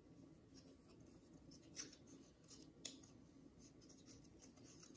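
Faint rustling and light crinkles of hands pressing adhesive-backed velvet onto a small laser-cut wooden piece, with two slightly louder crinkles about two and three seconds in, over a low room hum.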